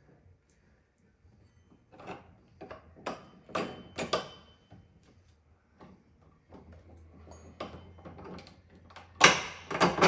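Short metallic clicks and knocks as the front axle bolt is fitted by hand through the mobility scooter's wheel hub and fork: a run of them about two to four seconds in, then a louder clunk near the end.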